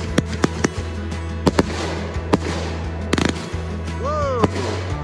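Fireworks going off overhead: a string of sharp bangs and crackles at uneven intervals, with music and its steady bass notes playing underneath.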